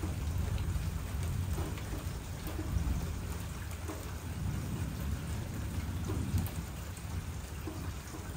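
Steady rain falling, with the low rumble of distant thunder swelling and fading underneath, loudest around the middle.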